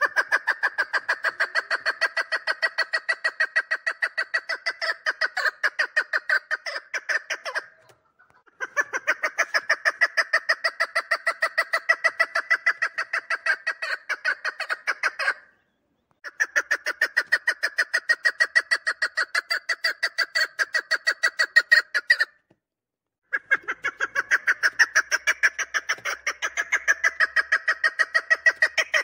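Chukar partridge calling: long runs of rapid, evenly spaced notes, each run about seven seconds, broken by three short pauses.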